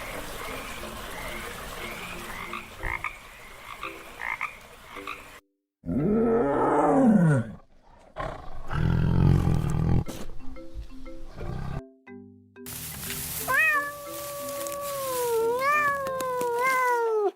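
A series of different animal calls one after another: first a stretch of repeated chirps over a hiss, then a call that rises and falls, a low rough burst, and near the end a long wavering call that rises in pitch twice. A light melody plays underneath.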